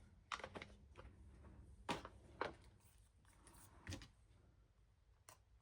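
Near silence with a few faint, scattered taps and paper rustles: an ink dauber being dabbed onto paper to ink the edges.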